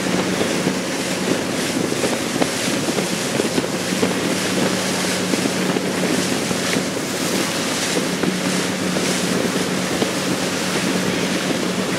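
Boat engine droning steadily under the rush of the churning wake, with wind buffeting the microphone.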